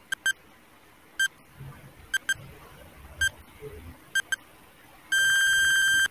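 Countdown timer sound effect: short electronic beeps about once a second, some in quick pairs, ending in one long beep of about a second near the end.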